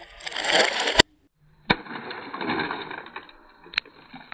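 Sharp cracks of a bat studded with 2.5-inch nails striking a water-filled plastic bottle and bursting it. There are several cracks: one about a second in that cuts off suddenly, and others near the middle and near the end, with a noisy outdoor hiss between them.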